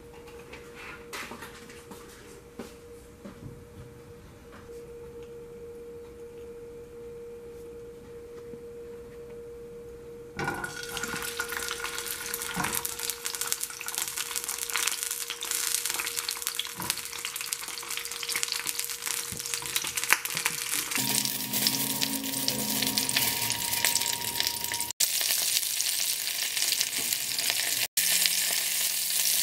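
Zucchini frying in hot oil in a pan: a loud, steady sizzle that starts about ten seconds in. Before it comes a quieter stretch with a steady hum and a few scrapes of a spatula in the pan.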